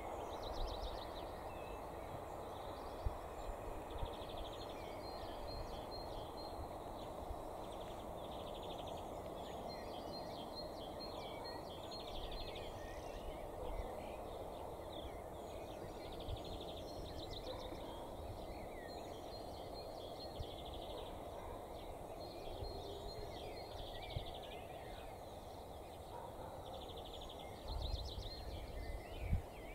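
Open-air ambience: small birds chirping and trilling in short repeated phrases over a steady background hum, with a few low bumps near the end.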